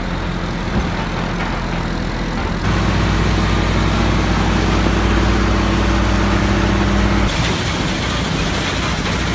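Heavy diesel equipment running steadily: a wheel loader working at a portable stone-processing plant, then the plant fed by an excavator. The engine sound changes abruptly about two and a half seconds in and again about seven seconds in.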